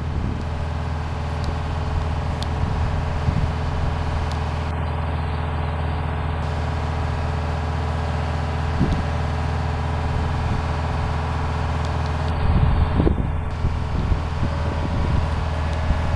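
Diesel engine of a rail ballast regulator running steadily as the machine travels along the track toward the listener: a low, even drone, with a few knocks about two-thirds of the way through.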